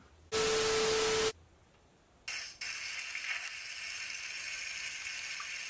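A loud burst of static about a second long, with a steady tone running through it, then after a short hush a steady hiss from an open video-chat audio line as a random video call connects.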